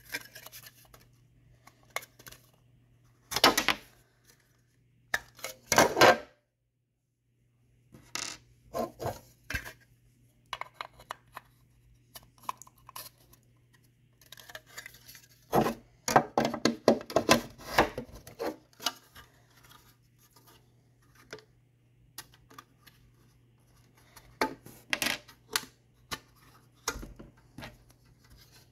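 Hard plastic Tech Deck ramp pieces being handled and set down on a tabletop: irregular clicks, knocks and short clattering scrapes, with pauses in between.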